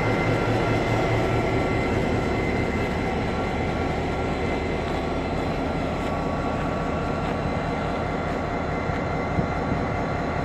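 EMD SD40-2 diesel locomotive idling close by: the steady low hum of its 16-cylinder two-stroke engine, with thin, steady whining tones over it.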